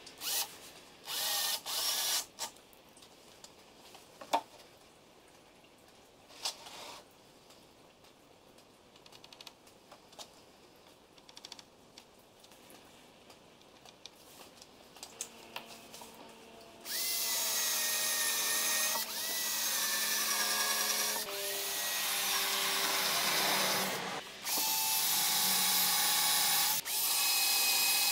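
Cordless drill/driver running into a particleboard shelf. A few short bursts come near the start, then small knocks during a quieter stretch. From just past halfway the motor whines through several longer runs with brief pauses between them.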